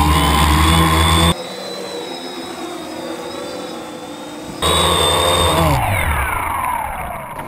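Quadcopter drone's electric motors and propellers whining up close, rising in pitch. After a sudden cut the drone is heard from farther off as a quieter buzz. About halfway through the sound turns loud and close again, and near the end the motors wind down, falling in pitch.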